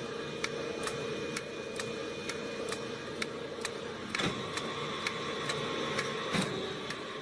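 CNC lathe running through a machining cycle: a steady machine hum with an even ticking, about three ticks a second. A higher whine comes in about four seconds in.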